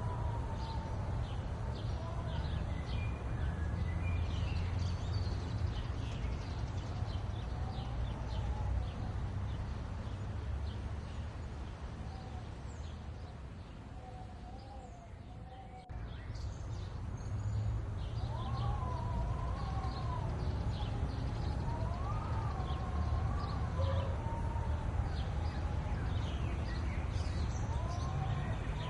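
Birds calling over a steady low rumble: several wavering calls that rise and fall, and many short high chirps. The sound drops away and then jumps back abruptly about halfway through.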